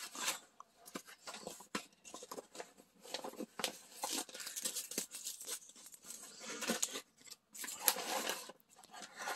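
Rustling and crinkling of a paint-by-number canvas and a plastic-wrapped strip of paint pots being handled and laid out, with light taps as pieces are set down.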